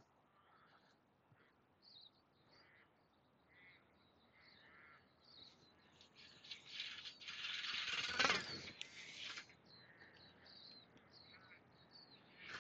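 Birds chirping and calling faintly over and over. About six seconds in, a louder rushing, rattling noise takes over for roughly three seconds, peaking with a sharp knock.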